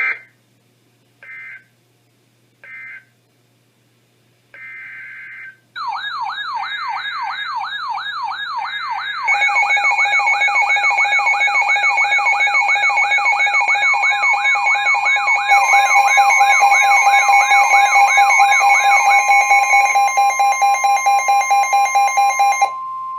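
Emergency Alert System signalling between two weather radio warnings. First come three short digital data squawks (SAME end-of-message bursts) and then a longer squawk. From about six seconds a wailing, siren-like alert tone sweeps up and down a few times a second, with more steady alarm tones stacked on it from about nine and fifteen seconds. Near the end the wail cuts off, leaving the steady 1050 Hz weather radio warning tone alone.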